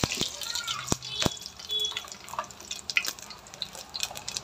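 Whole spices (bay leaf, cinnamon, cloves, cardamom) frying in hot oil in a pressure cooker, spitting and crackling in irregular pops, with a few sharper ones in the first second or so.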